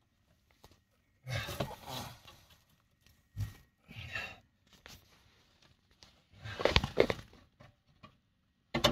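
Foil-jacketed flexible duct crinkling and rustling in irregular bursts as a whole house fan unit is handled and fitted to it, with a sharp knock about three and a half seconds in.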